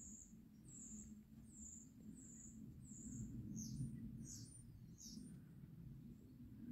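Faint bird chirping: a run of short, high chirps about two a second, then a few quicker downward-sweeping notes, over a low steady background hum.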